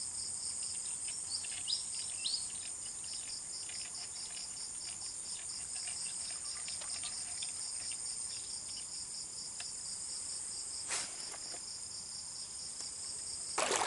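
Steady chorus of insects trilling high and pulsing rapidly and evenly, with a few brief bird chirps in the first few seconds. A single sharp click or tap sounds about three quarters of the way through, and a louder rustling disturbance comes at the very end.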